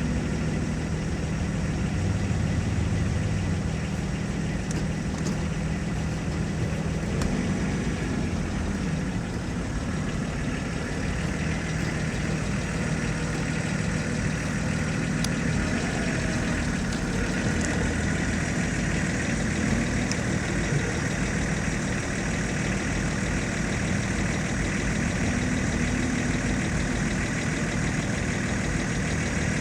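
Vehicle engines idling and running at low speed, a steady drone that holds through the whole stretch.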